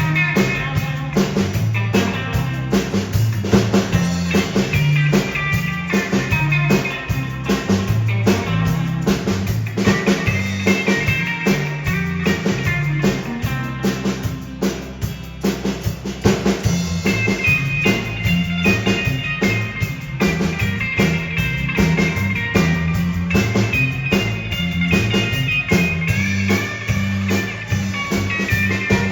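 Live band playing an instrumental passage: drum kit with rimshots keeping a steady beat under electric guitar and bass.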